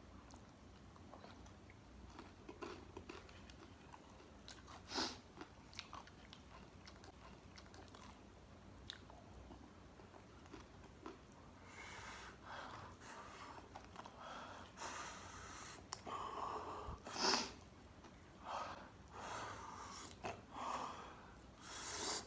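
Close-up mouth sounds of a person biting and chewing crispy fried food: faint scattered clicks at first, then from about halfway in, louder crunchy chewing with a few sharp crunching bites.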